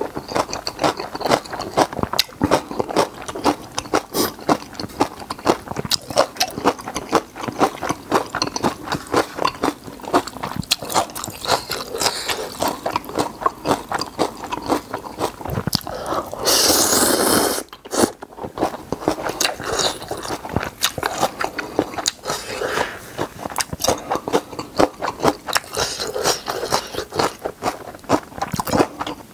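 Close-miked eating of spicy ramen and napa cabbage kimchi: rapid crunching and chewing clicks, with one rushing sound lasting about a second a little past halfway.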